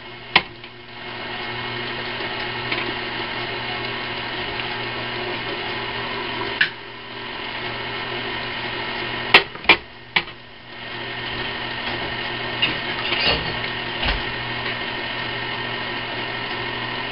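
Electric stand mixer running steadily, beating creamed butter and brown sugar as eggs are added one at a time. It drops out briefly three times and picks up again, with a few sharp clicks around those breaks.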